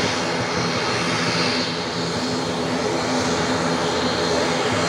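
The twin turboprop engines of an ATR 72 taxiing: a steady engine drone with a propeller hum of several held tones over a hiss.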